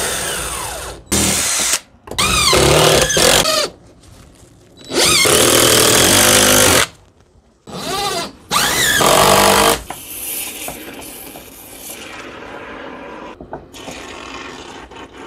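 Cordless drill driving screws into the edge of an old wooden door, in five trigger bursts over about ten seconds, the motor's pitch rising and falling with each burst. After that only a much quieter steady noise remains.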